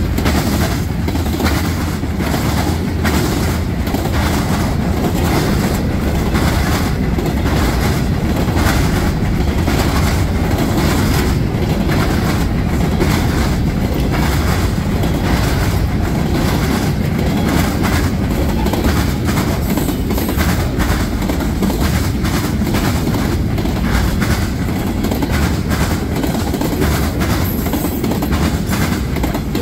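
Freight car wheels hitting a railroad diamond crossing hard and fast: a continuous rapid run of clacks and bangs over the steady rumble of a fast-moving freight train.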